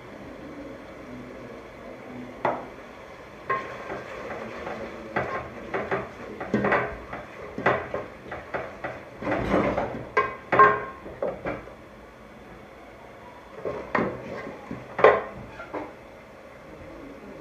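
A cooking spoon clinking, knocking and scraping against a pot in irregular taps, busiest in the middle, with a couple of sharper knocks near the end.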